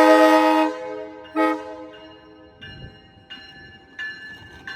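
Amtrak passenger train horn sounding two blasts, each a chord of several notes: the second one is a little longer, about a second. Under and after the blasts, the train's bell rings steadily, about once every 0.7 s, as the train gets under way.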